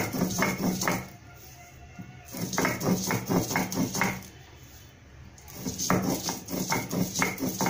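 Stone roller of a shil-pata rocked back and forth on the stone slab, grinding soaked pea dal, green chillies and salt into a paste. Rhythmic grinding strokes come about four a second, in three spells with short pauses between them.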